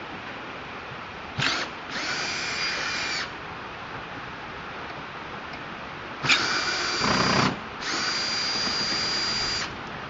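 Power drill backing out two screws: its motor whines in four short runs, a brief blip and a run of about a second, then after a pause two longer runs of one to two seconds.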